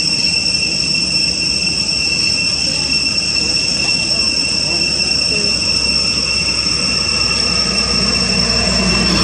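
Insects droning steadily at two high pitches. A low rumble swells up underneath in the last few seconds.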